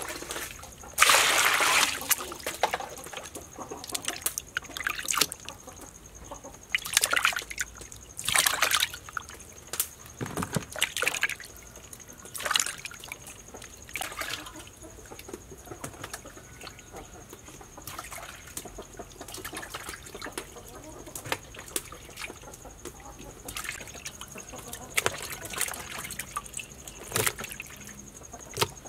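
Hands scrubbing and squeezing slippery eels in a metal basin of foamy water: irregular splashes and sloshing as they are washed clean of their slime.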